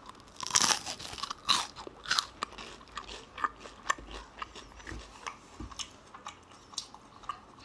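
Biting into and chewing a crisp piece of deep-fried meat coated in an ice-water and starch batter, close to the microphone. A loud crunch of the first bite about half a second in, then a run of smaller crunches as it is chewed, thinning out toward the end.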